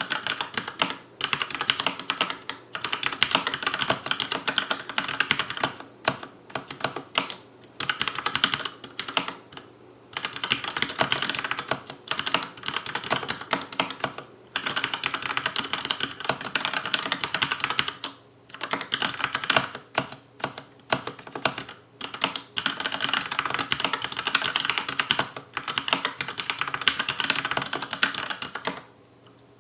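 Fast touch typing on a Logicool K835 tenkeyless mechanical keyboard with TTC linear red switches: a dense, rapid clatter of keystrokes broken by brief pauses of a fraction of a second.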